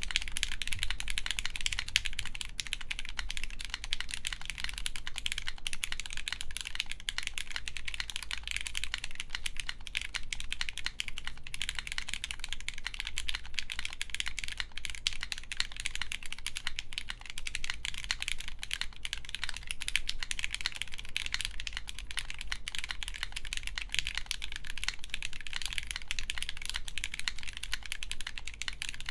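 Fast, continuous typing on a mechanical keyboard with lubed Gateron X linear switches on an FR4 plate and CRP R4 keycaps: a dense run of key clacks with bottom-out thocks, no foam in the case.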